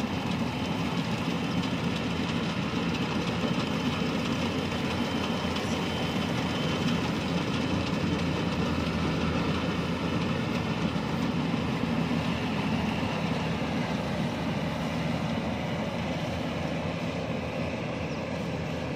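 Yanmar rice combine harvester's diesel engine and threshing machinery running steadily as it cuts rice, a continuous mechanical drone. It grows a little fainter near the end as the machine moves away.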